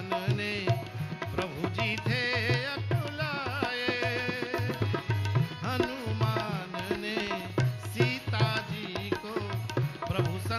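Hindu devotional bhajan music: tabla keeps a steady beat under a wavering, vibrato-laden melody line.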